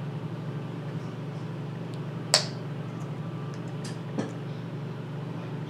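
Small plastic bottle of slime activator being worked open by hand, its plastic cap giving a sharp click about two seconds in and a softer one near four seconds, with a few faint ticks. A steady low hum runs underneath.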